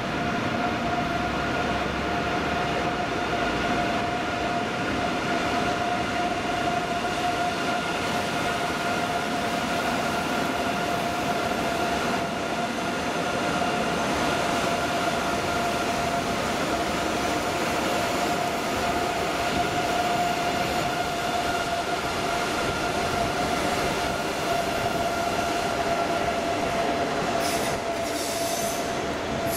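An ICE 3M high-speed train rolling slowly past a station platform, with rail noise and a steady high-pitched whine held throughout. Near the end come a few brief, very high squeaks.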